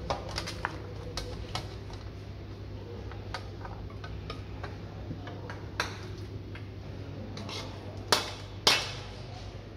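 Metal ladle clinking and scraping against a metal karahi wok as cooked mutton karahi is stirred and served out, in scattered sharp clinks. The two loudest clanks come about eight seconds in, as the wok is tipped and scraped out into a serving dish. A steady low hum runs underneath.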